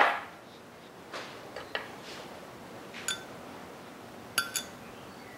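Metal spoon clinking against a glass bowl while shredded cheese is scooped out of it: a few light taps, then a ringing clink about three seconds in and two more close together near the end.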